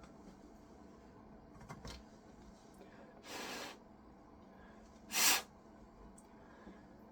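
Two short puffs of air blown at the keyboard to clear hair and dust from between the switches, a fainter one about three seconds in and a louder, shorter one about two seconds later.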